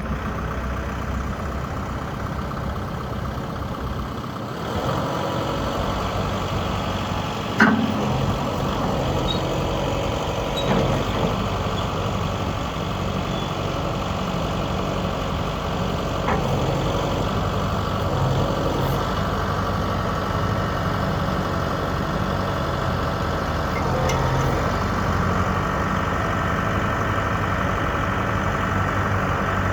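Kubota M62 loader backhoe's four-cylinder diesel engine running steadily, with a sharp knock about eight seconds in.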